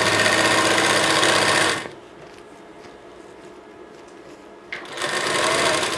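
Sewing machine stitching a seam: it runs steadily for about two seconds and stops. A click comes a few seconds later, and the machine starts running again near the end.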